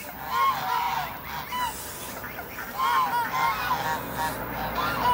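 Domestic geese honking in an agitated squabble, with short calls in bouts: one about half a second in, another around three seconds in, and a few more near the end.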